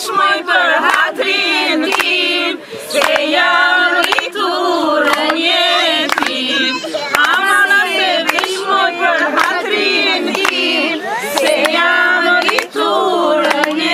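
A group of women singing an Albanian wedding song together without instruments, with hands clapping a steady beat.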